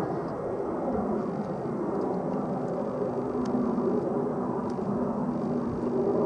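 Jet engine noise of a Boeing 747 on final approach, a steady rumble. A low steady hum joins in about two seconds in.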